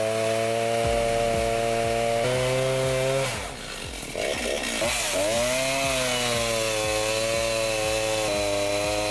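Chainsaw running at high revs, cutting wood. Its pitch drops and wavers about three to five seconds in, then steadies again.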